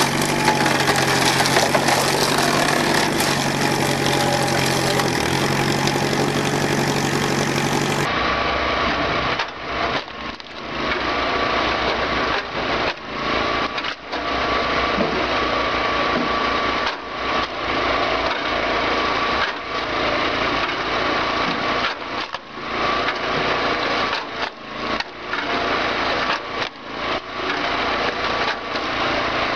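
Wood-splitting machine at work, then after a cut about 8 seconds in a log splitter's small petrol engine running steadily with a held whine, broken by repeated short knocks and dips as rounds of firewood are split.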